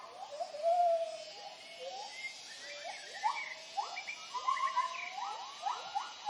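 White-handed gibbons calling: many overlapping whooping notes that rise steeply in pitch and then hold, the family's territorial hooting call.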